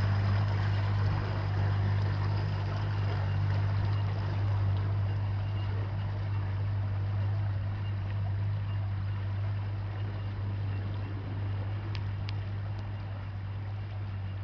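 Outboard motor of a small aluminium boat running at a steady low drone, slowly fading as the boat moves away.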